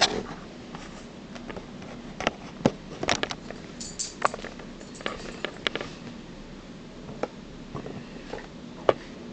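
Irregular light clicks and taps, a dozen or more scattered over a faint steady hum, with a sharper knock near the end.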